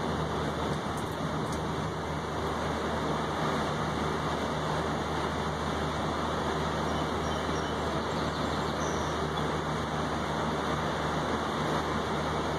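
Heavy rain falling steadily on a balcony's railing and table: a continuous even hiss, with a low steady hum underneath.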